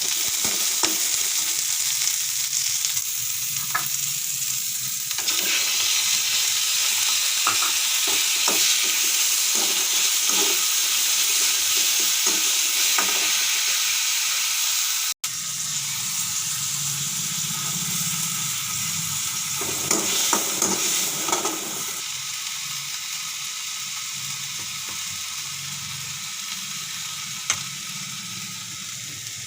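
Vegetables frying in a pan, a steady sizzle, with a spatula stirring and scraping against the pan in short clicks.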